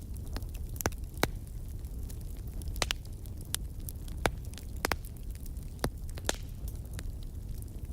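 Wood fire crackling: irregular sharp pops and snaps, roughly one or two a second, over a steady low rumble.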